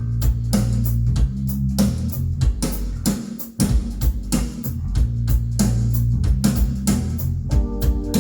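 Recorded rock music playing: an instrumental passage with guitar, bass and drum kit on a steady beat, with an organ coming in near the end.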